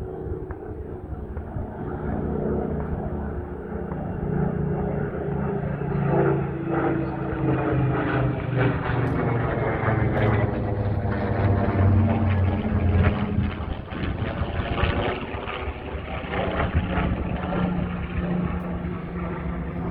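Rolls-Royce Griffon V12 engine of a Supermarine Spitfire Mk XIV flying past. The engine note grows louder, peaks about twelve seconds in, and drops in pitch as the plane passes.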